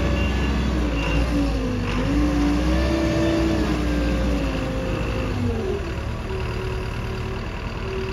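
A Manitou MVT 1332 SL telehandler's diesel engine running under hydraulic load as the boom lowers the bucket. A whining note wanders up and down in pitch, then drops about two-thirds of the way through and settles to a steadier, lower tone.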